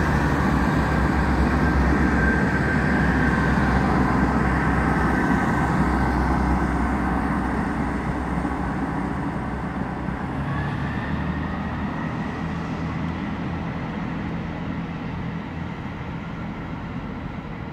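Two coupled Class 158 diesel multiple units pulling away under power, a steady engine rumble with a faint high whine that slowly fades as the train draws off.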